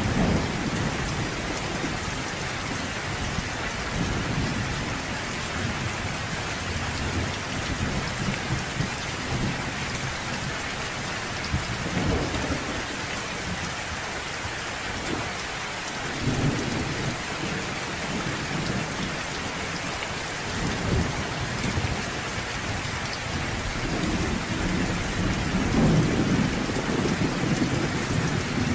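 Steady heavy rain falling, with low rolls of thunder rumbling up several times, the loudest near the end.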